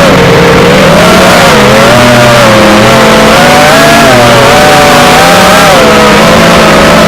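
Eachine Wizard X220 FPV racing quadcopter's brushless motors and propellers whining, the pitch constantly rising and falling with the throttle, over a loud rush of noise.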